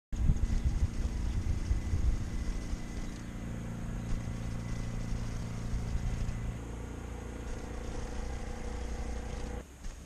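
A motor vehicle's engine running steadily as a low hum, its tone shifting about six and a half seconds in.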